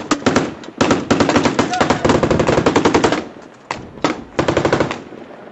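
Automatic weapons fire: a few single shots, then a long burst of rapid fire about a second in that lasts about two seconds, and another shorter burst about four seconds in.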